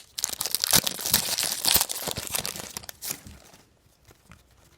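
2002 Fleer Tradition basketball card pack wrapper crinkling and tearing open, with the cards being handled; the rustling dies down after about three seconds, leaving a few faint clicks.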